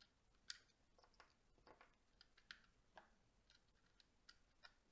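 Faint, irregular small plastic clicks of LEGO pieces being handled, as the wheels on a LEGO Land Rover Defender model are swapped for bigger tyres.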